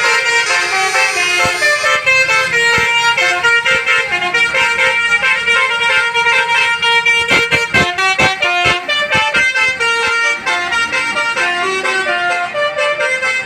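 Tour bus's Basuri multi-tone musical air horn playing a melody, note after note, with a cluster of sharp knocks about seven to nine seconds in.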